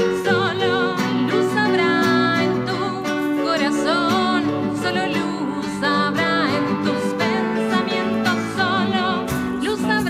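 Folk band playing a song: a singing voice with vibrato over plucked guitar, bass and percussion, with regular percussion strikes keeping the beat.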